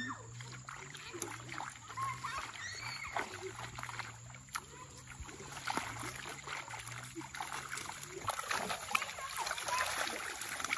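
Muddy pond water splashing and sloshing as a seine net is hauled through it and its bag lifted, with fish thrashing in the net; the splashing gets busier in the last few seconds.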